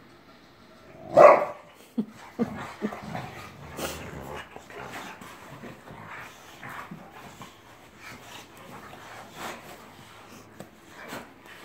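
Two boxer dogs play-fighting: one loud bark about a second in, then a few short barks, followed by a steady run of quieter dog noises as they tussle.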